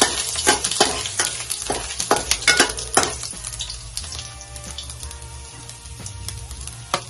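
Sliced ginger sizzling in hot oil in a nonstick wok, with a metal spatula scraping and tapping the pan in quick strokes over the first three seconds. The sizzle then settles to a quieter hiss, and a single sharp knock comes just before the end.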